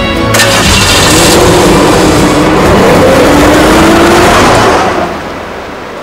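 Car engine accelerating away, its pitch rising twice, then fading about five seconds in.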